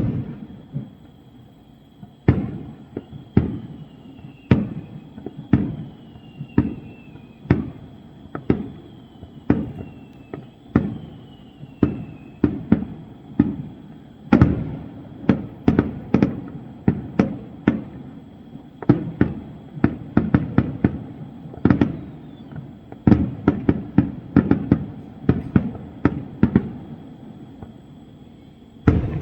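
Fireworks display: a long run of sharp bangs from shells bursting overhead, each with a short echoing tail, spaced out at first and coming thick and fast in the second half. A few falling whistles sound in the first half.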